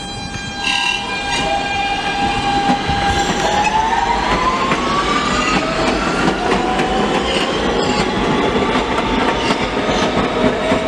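R160 subway train pulling out of the station. Its traction motors give a whine that rises in pitch as it speeds up. Wheels click over the rail joints, more and more often as it gathers speed.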